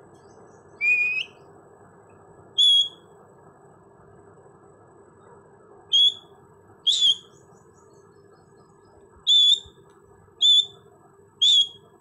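Indian ringneck parakeet giving seven short, high-pitched calls spaced one to three seconds apart, the first a slightly longer call that rises in pitch.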